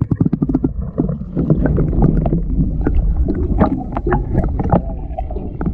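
Muffled water noise picked up by a camera held under the sea: a steady low rumble with many irregular clicks and gurgles, thickest in the first second.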